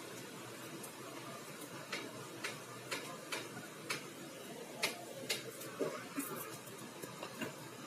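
A metal cooking utensil clicking against an aluminium wok as food is stirred, light sharp knocks about twice a second, over a faint steady hiss.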